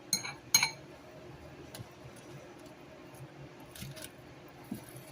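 Two sharp, ringing clinks of a fork against a salad bowl near the start, then a few faint taps and scrapes of the fork moving through the salad.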